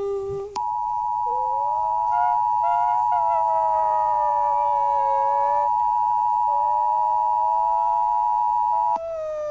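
Emergency Alert System attention signal: a steady two-tone alarm held for about eight seconds, starting about half a second in and cutting off suddenly near the end. A fainter wavering tone slides up and down beneath it.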